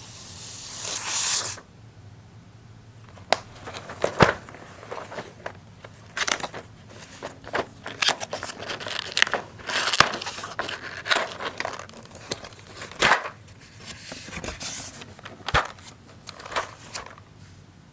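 A mailed package being torn open: a long tear in the first second and a half, then packaging crinkling and rustling, with sharp crackles and snaps as the wrapping is handled.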